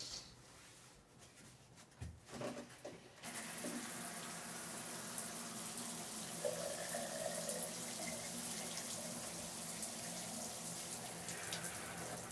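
A few knocks, then about three seconds in a shower starts and water sprays steadily.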